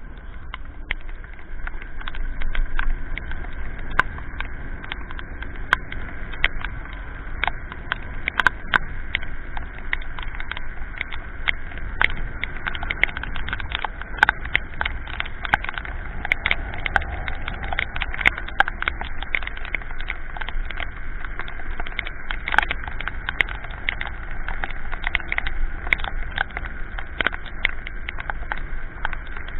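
Steady wind and tyre noise from a moving electric scooter on a wet road, with irregular sharp taps throughout as raindrops strike the camera.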